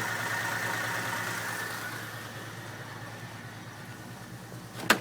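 1950 Pontiac's flathead straight-six idling steadily while it warms up, growing quieter after the first couple of seconds. A single sharp click near the end.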